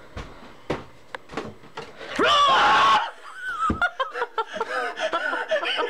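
A few soft footsteps, then about two seconds in a loud startled scream lasting about a second as someone is scared in the dark, followed by breathless laughing.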